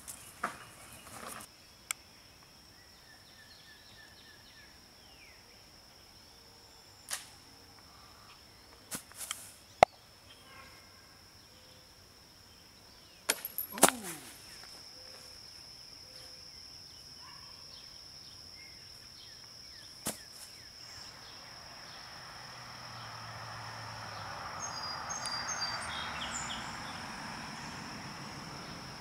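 Quiet outdoor background broken by a few sharp knocks and clicks, the loudest about 14 seconds in. From then on a steady high thin whine continues, and a rushing noise swells and fades over the last several seconds.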